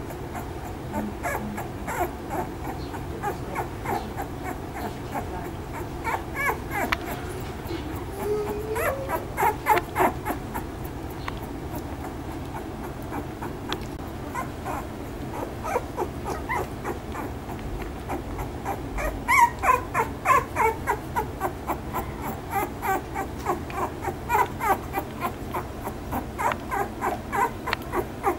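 Newborn American Bully puppies whimpering and squeaking. Runs of short, high squeaks come and go, with the busiest stretches about a third of the way in and again past the middle.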